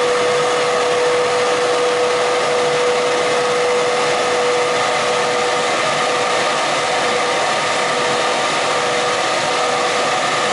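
A plastic blown film extrusion machine running, drawing film up its tower and winding it onto a roll: a steady mechanical noise with a constant whine.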